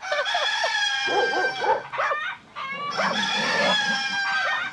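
Chickens calling together: two long, drawn-out crowing calls, with short clucks between them.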